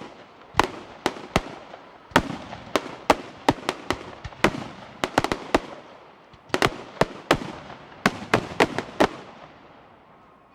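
Fireworks bursting: a rapid, irregular string of about twenty sharp bangs in clusters, each trailing off in an echo, stopping a little before the end.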